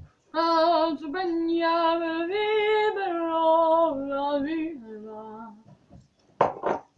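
A female voice singing a wordless tune in long held notes, stepping between a few pitches and ending on a lower held note.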